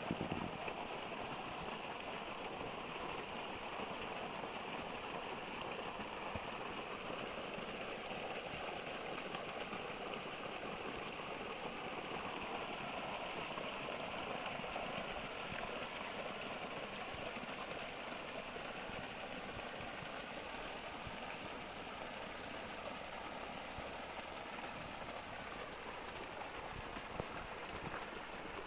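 Water gushing steadily from a borewell's outlet pipe and splashing onto the ground.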